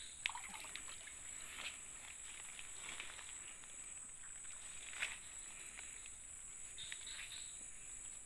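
Steady high-pitched chorus of insects, with a few brief splashes and rustles, the loudest about five seconds in, as a small snakehead fish is lifted out of the water on a set line.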